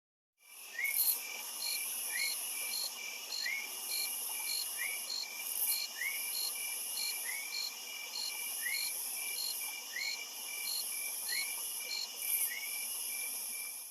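Jungle insect chorus, crickets trilling in layers: a steady high-pitched buzz, a pulsing chirp about three times a second, and a short sliding call repeating about every second and a half. It fades in about half a second in and cuts off just before the end.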